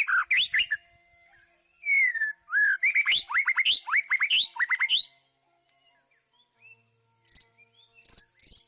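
White-rumped shama singing: rapid runs of loud whistled and sweeping notes, one long falling whistle among them, then a pause and three short high notes near the end.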